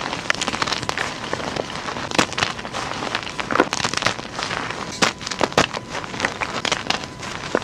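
Blocks of gym chalk being crushed and crumbled close to the microphone: dense, irregular crunching and crackling with many sharp snaps.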